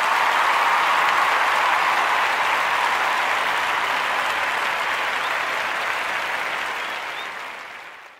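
Crowd applauding, a steady even clatter of many hands that fades out over the last second or so.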